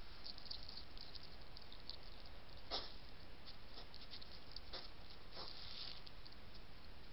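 Wild hedgehogs moving about at a feeding dish, making scattered small clicks and rustles over a steady low hiss, with one louder knock about three seconds in.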